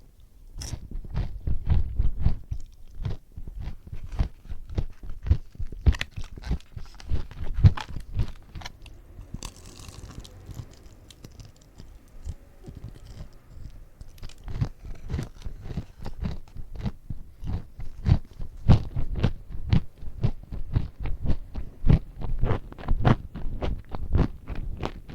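Close-miked chewing and crunching of crispy fried chicken, a quick run of crisp bites and chews, with a softer, hissy stretch about ten seconds in.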